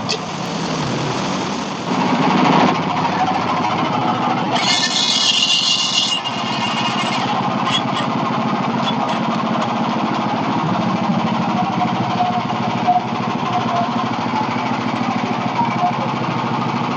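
Hudson Patriot band sawmill running steadily, its engine driving the band blade through a small log on a thin first cut that shaves off the log's lean. A brief high hissing burst comes about five seconds in.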